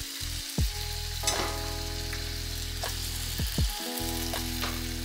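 Raw potato strips frying in oil in a nonstick pan: a steady sizzle with a few sharp pops.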